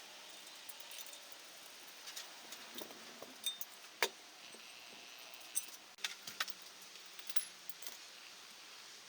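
Scattered light metallic clinks and clicks of hand tools and small metal parts being handled, the sharpest about four seconds in and a few more in quick succession around six seconds.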